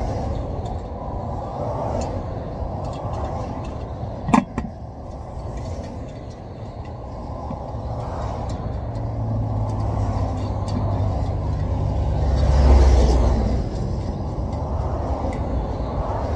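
Interstate traffic going past close by: a steady rumble of tyres and engines that swells as a heavy vehicle passes about twelve to thirteen seconds in. A single sharp click sounds about four seconds in.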